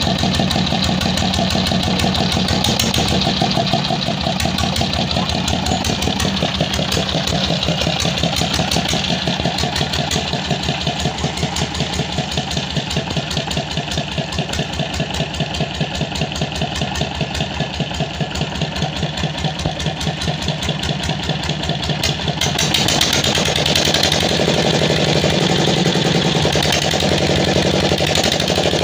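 SD 25 hp Chinese single-cylinder diesel engine running at a steady speed, its exhaust beats closely and evenly spaced. About three-quarters of the way through it gets louder.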